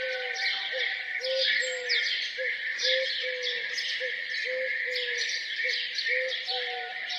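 Many birds chirping and singing together in a dense morning chorus. Under it, a low note is repeated about twice a second.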